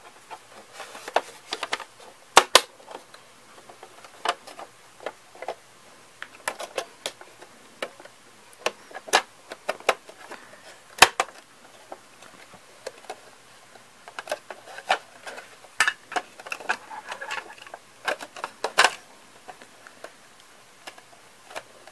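Hard plastic Playmobil toy parts clicking, tapping and rattling irregularly as jail-cell bars are handled and pushed into place in a plastic building, with a sharper knock about halfway through.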